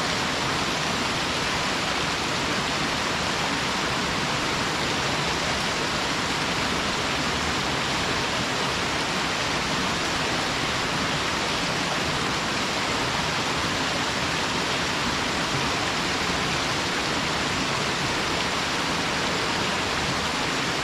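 Waterfall: the steady, even rush of falling water, unbroken throughout, with its hiss strongest in the upper-middle range.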